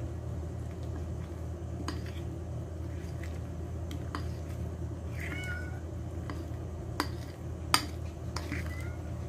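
Metal utensil stirring thick cake batter in a glass bowl, with scattered sharp clicks of the utensil against the glass over a steady low hum. A short high-pitched squeal comes about five seconds in.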